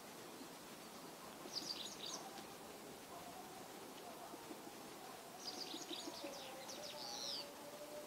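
White wagtail giving a soft, restrained subsong-like twitter: a short burst of quick high chirps about a second and a half in, then a longer run of chirps from about five and a half seconds in lasting some two seconds. This is a quiet warbling (guzeri) rather than full song.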